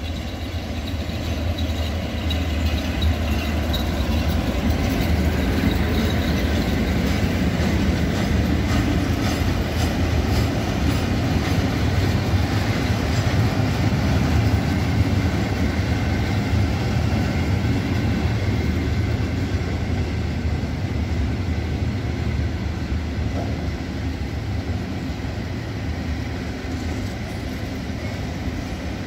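ET22 six-axle electric freight locomotive and a long string of gas tank wagons rolling past on the rails with a steady heavy rumble. The sound builds over the first few seconds and eases in the last part as the train runs in to stop at a signal.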